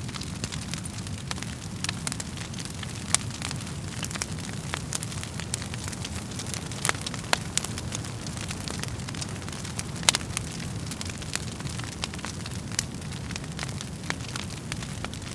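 Wood fire burning in a fireplace: a steady low rumble of flames with constant fine crackling and irregular sharp pops of the burning wood, the loudest about three, seven and ten seconds in.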